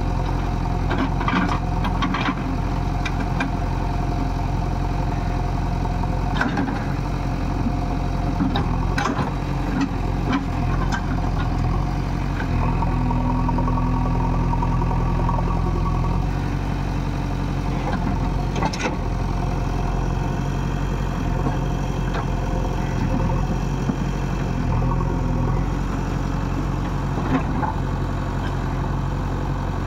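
JCB 3DX backhoe loader's diesel engine running steadily, with a few short sharp knocks along the way. For a few seconds about halfway through the engine note grows stronger and higher, as if working harder.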